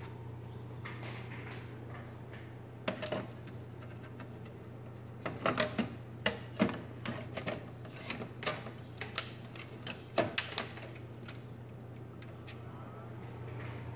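Irregular plastic clicks and knocks as a hand works the front drive-bay door of a computer tower, over a steady low machine hum.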